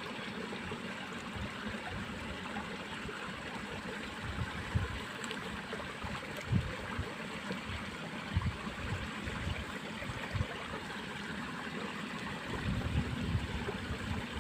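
Water running steadily along a small irrigation ditch, with a few short low thumps through the second half.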